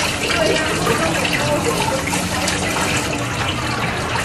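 Water running from a handheld shower sprayer and splashing onto a dog being rinsed in a concrete sink, a steady rush throughout.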